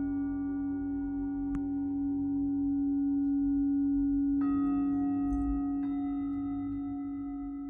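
Singing bowls ringing: one steady low hum sustains while higher ringing tones come in, with a new tone entering about four and a half seconds in and another about a second later, slowly fading.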